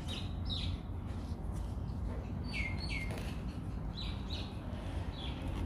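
A small bird chirping: short falling chirps, mostly in pairs about half a second apart, over a steady low background rumble.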